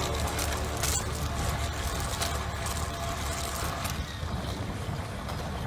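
Steady low rumble of a moving vehicle's engine and tyres on the road, heard from on board, with a few short knocks.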